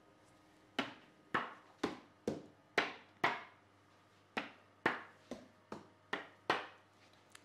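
A hand tapping books laid out on a worktop one after another: twelve short knocks in two runs of six, with a pause of about a second between the runs.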